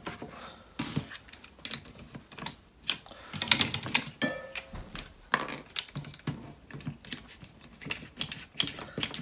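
Irregular small plastic and metal clicks and knocks: a nylon cable tie being pulled tight around a rubber bush, then one-handed bar clamps being set on a jig and their triggers squeezed. There is a short squeak a little after four seconds.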